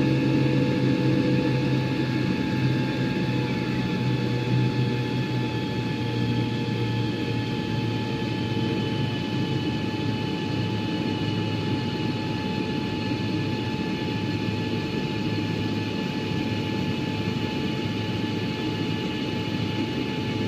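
Passenger jet engines running steadily at high power late in a take-off: a dense rumble with several steady high-pitched whining tones, slowly easing in level.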